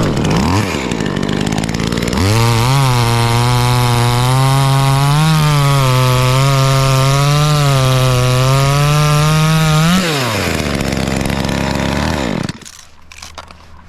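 Cheap Chinese knockoff of an Echo 2511T top-handle two-stroke chainsaw cutting off a small branch stub. It gives a short rev, then runs at full throttle for about eight seconds with slight dips in pitch as it cuts, then drops back to idle, which cuts out about a second and a half before the end.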